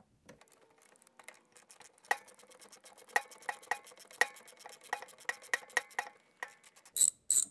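Hand screwdriver with a T30 Torx bit working a screw loose in a steel recliner mechanism: a run of irregular, ringing metal clicks, with two sharper, brighter clacks near the end.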